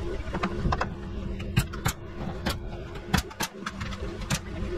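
Nails being driven into wood framing: about half a dozen sharp strikes over roughly three seconds, over a steady low machine hum.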